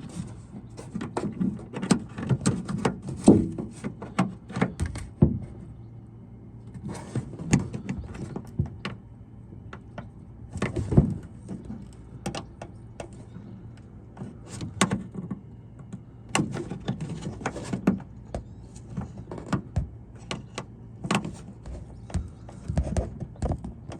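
Irregular clicks, taps and small rattles of plastic and metal parts being handled inside a car door shell, as fingers twist at the plastic clip that holds the lock-mechanism rod.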